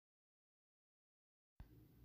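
Near silence: the audio is cut out, with a soft click and faint room tone coming in near the end.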